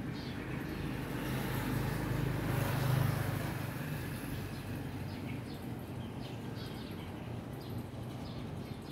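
A motor vehicle passes on the street below, its engine hum growing to its loudest about three seconds in and then fading. Birds chirp in short, repeated high notes through the second half.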